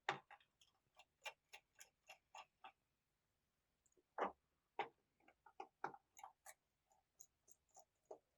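Small, sharp metallic clicks and ticks, about three or four a second, in two runs with a pause of over a second between them: a T5 Torx screwdriver turning out the small bottom-case screws of a laptop.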